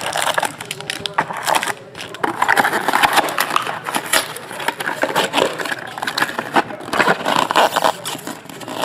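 Plastic shrink wrap and foil card-pack wrappers crinkling and rustling as they are handled, an irregular crackle that goes on throughout.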